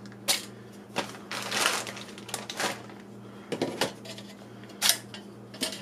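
Thin sheet-metal playset pieces clinking, tapping and scraping as they are handled and fitted together by tab and slot: a string of sharp clinks with a longer scrape about a second and a half in.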